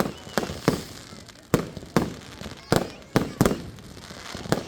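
Fireworks going off in a display, about ten sharp bangs at irregular intervals.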